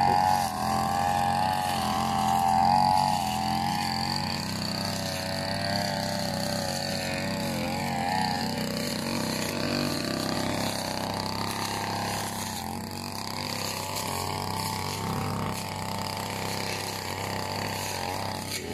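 Small two-stroke engine of a backpack brush cutter running continuously, its revs wavering up and down as the throttle is worked. It is loudest for the first few seconds, then a little fainter.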